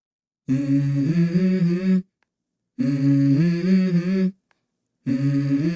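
Background music: a humming, voice-like melody in three phrases of about a second and a half each, separated by short complete silences.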